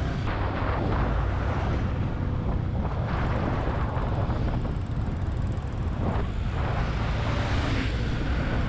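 Motorcycle ridden at speed: steady wind noise buffeting the microphone over the low rumble of the engine and road.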